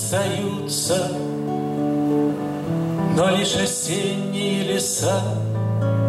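Guitar played, with a man singing to it.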